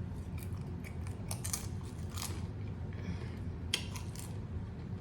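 Close-up chewing of crunchy nachos made with Doritos chips: a run of irregular crisp crunches over a steady low hum.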